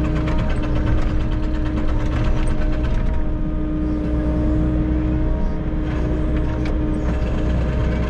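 Volvo EC60E mini excavator working, heard from the cab: a steady diesel engine drone with a hydraulic whine that breaks off and returns as the arm and bucket move. A few light clanks from the bucket and linkage.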